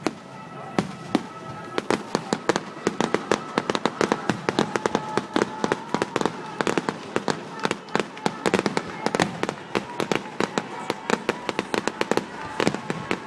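Fireworks display in a dense barrage: sharp bangs and crackles of bursting shells follow one another several times a second, building to the densest run near the end.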